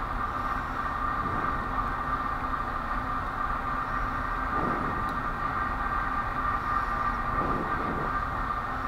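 Steady mechanical hum with a constant high whine, with two faint brief handling noises, one about halfway through and one near the end.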